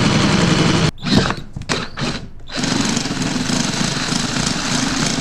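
Handheld electric drill with a 3/8-inch bit boring through the metal of a motorcycle drag-pipe exhaust. It runs steadily, stops about a second in, gives a few short bursts, then runs steadily again until it stops.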